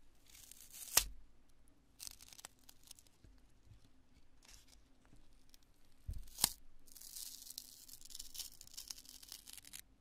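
Pieces of cured construction foam being squeezed and torn apart by hand, giving a crisp, meringue-like crackling crunch. Two sharp snaps stand out, about a second in and about six and a half seconds in, and a long run of dense crackling fills the last three seconds.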